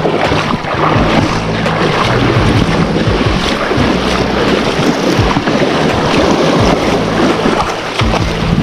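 Wind buffeting the microphone over lapping sea water, with a low steady hum underneath.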